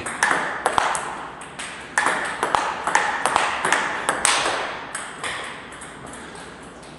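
Table tennis rally: the plastic ball clicks sharply off rubber-faced paddles and the table several times a second, during forehand smash practice against blocked balls. The hits thin out and grow quieter after about five seconds.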